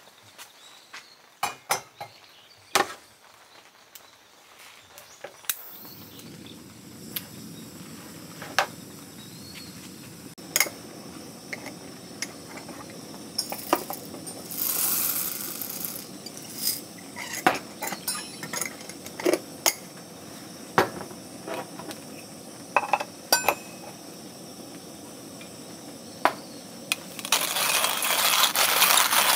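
Roasted coffee beans and glassware being handled: irregular clicks and clinks, with a short rattling rush about halfway through as beans are tipped out of a glass jar. A louder steady noise starts near the end.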